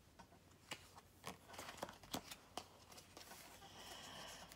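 Faint, scattered clicks and flicks of tarot cards being handled as a card is drawn from the deck.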